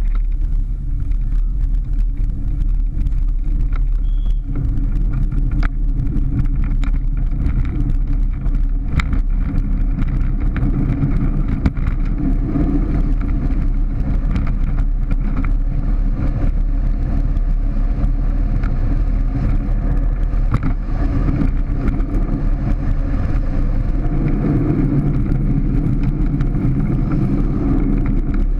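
Soapbox cart with no engine rolling fast down an asphalt road, heard from a camera on the cart: a steady low rumble of wind buffeting the microphone and wheels on the road, with a few faint rattles.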